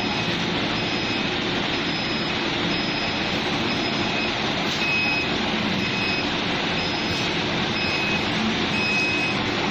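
Steady factory machinery noise with a repeating electronic beep, short and high, about once a second.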